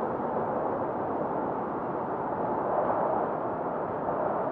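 Steady, even rushing noise of a snowfall ambience track, with no distinct events and no change in level.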